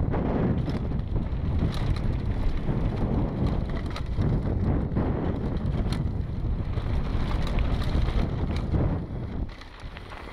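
Wind buffeting a GoPro Hero 3's microphone as a Specialized Demo 8 downhill mountain bike runs fast down a packed-dirt and gravel trail. Tyre noise and frequent clicks and rattles from the bike and loose stones sit under the wind. It goes briefly quieter for about a second near the end.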